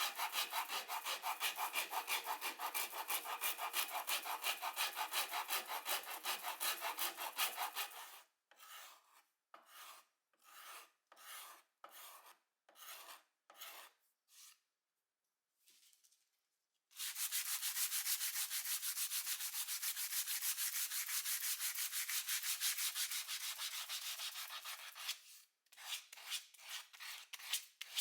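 Something rubbed back and forth on wood in quick, even strokes, stopping partway for slower single strokes and a short pause before the quick stroking resumes.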